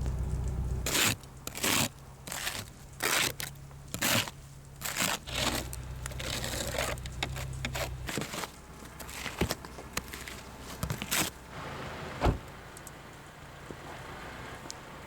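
Snow being brushed and scraped off a car in quick, irregular strokes, with a single sharp knock about twelve seconds in. A low hum comes and goes in the first half.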